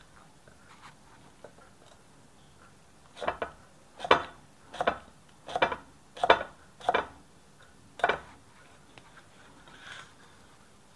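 Kitchen knife slicing chillies on a thick round wooden chopping block: a run of about eight sharp knocks of the blade on the wood, under a second apart, starting about three seconds in.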